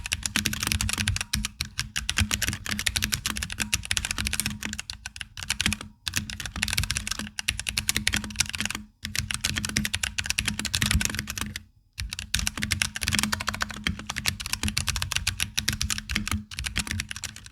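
Fast, continuous typing on a NovelKeys NK65 Entry Edition mechanical keyboard with Drop Halo Clear tactile switches, in a frosted polycarbonate case with Cherry-profile PBT keycaps. The keystrokes form a dense clatter, broken by three brief pauses.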